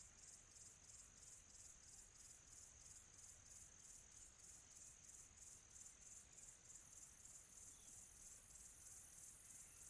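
Faint crickets chirping in a quiet tropical afternoon ambience: a high, pulsing trill of about three pulses a second that turns smoother and more continuous over the last few seconds.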